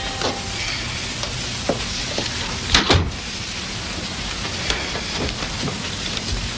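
Steady hiss of an old film soundtrack, with a few light knocks and a louder double knock about three seconds in.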